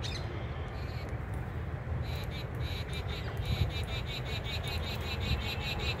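Rose-ringed parakeets calling: about two seconds in, a fast run of short, high chattering calls starts, several a second, over a steady low rumble.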